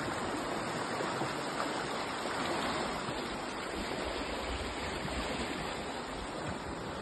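Steady rushing wind noise buffeting the microphone, with uneven low rumbling surges.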